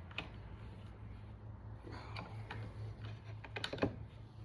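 Scattered small clicks and taps of screws and a T-handle hex key being handled and turned while a bar stool is put together, with a cluster of sharper clicks near the end, over a steady low hum.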